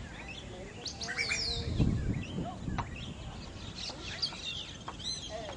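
Several birds chirping and calling with short, overlapping sweeping notes. A brief low rumble near two seconds in is the loudest moment.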